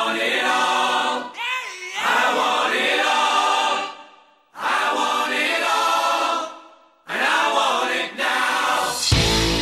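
Choral singing without instruments, in three phrases separated by short breaks; a distorted electric guitar comes in near the end.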